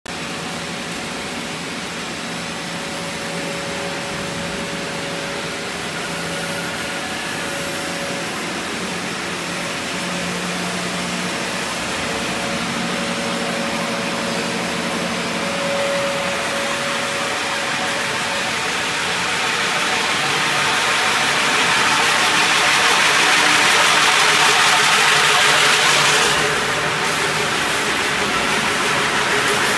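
Wire-drawing machines running as they draw ER70S-6 steel welding wire. A steady motor hum carries a couple of held tones, and a hiss grows louder in the second half.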